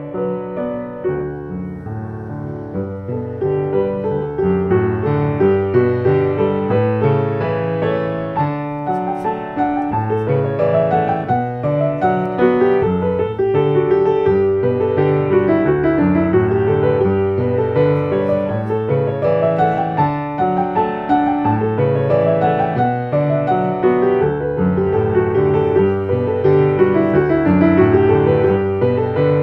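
Solo piano music: flowing, repeating rising and falling figures over held bass notes, growing somewhat louder over the first several seconds.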